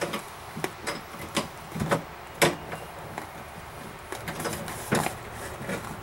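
Irregular clicks and knocks from inside a pickup's steel door shell as a hand works at the outside door handle's linkage rods and clips, with two louder knocks about two and a half and five seconds in.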